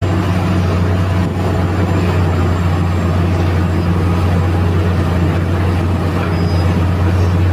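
Heavy mining machinery's large diesel engine running steadily, a loud, deep, even drone.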